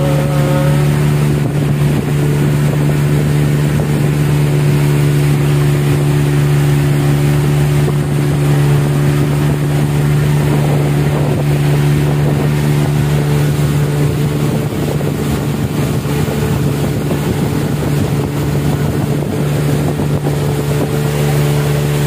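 Small open boat's engine running steadily under way, a constant low drone that holds the same pitch throughout, over the rush of water past the hull.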